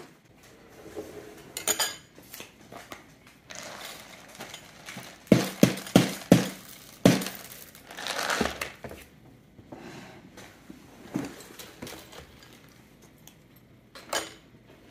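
Tableware clatter: a run of about five sharp knocks on ceramic bowls, then dry ring cereal rattling as it pours from a plastic tub into a bowl. A spoon clinks in a bowl near the end.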